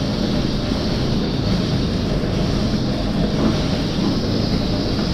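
Steady mechanical drone of the running Lely A4 milking robot and its barn machinery, even and unbroken, with no air hiss from the repaired premilk cylinder.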